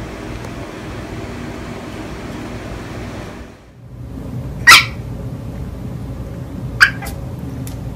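A pet's two short, loud, sharp cries about two seconds apart, the first the louder, after a steady background hum drops away.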